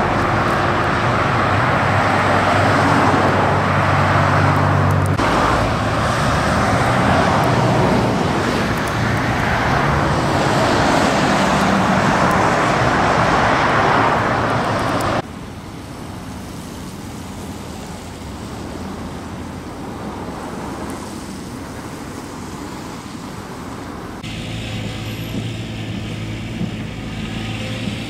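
Road traffic on snowy, wet pavement: vehicle engines and tyre noise. It is loud for about the first half, then drops abruptly and changes again near the end, with a steady low engine hum.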